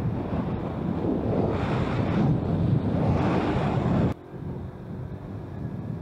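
Wind rushing over the microphone of a camera on a moving scooter, swelling, then breaking off suddenly about four seconds in to a quieter steady noise.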